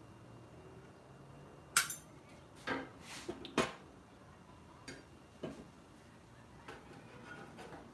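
Metal spatula scraping and knocking against the steel top of a flat-top griddle. There are several short scrapes and clinks between about two and six seconds in, the first the loudest.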